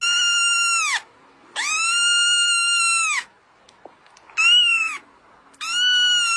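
A kitten meowing insistently: four long, high-pitched cries with short gaps between them, the first two dropping in pitch as they end.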